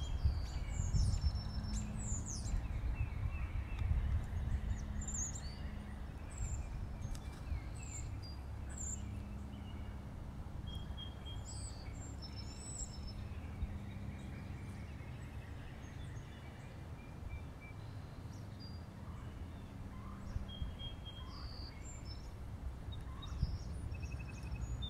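Wild songbirds chirping and calling, short high notes scattered throughout, over a steady low rumble.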